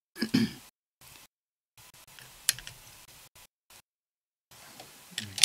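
Sprue cutters snipping a part off a plastic model-kit sprue: a sharp click about two and a half seconds in and a louder one near the end, with a softer knock of the sprue being handled near the start.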